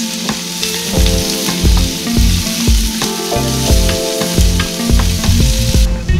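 Diced meat sizzling and frying in a hot ridged grill pan, turned with a wooden spatula, over background music with a steady beat. The sizzle cuts off near the end.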